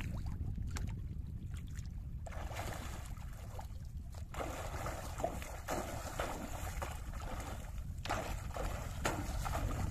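Wind rumbling on the microphone, with sea water splashing and lapping in irregular patches from about two seconds in.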